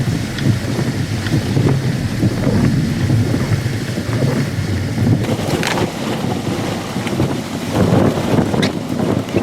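Strong, gusty severe-thunderstorm wind rushing and buffeting over the microphone, with heavy rain.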